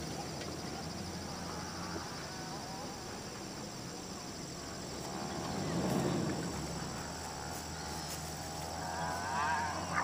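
Evening lakeside ambience: a steady, high-pitched insect chorus, with a few short, wavering bird calls, clearest near the end. A brief swell of low rumble comes about six seconds in.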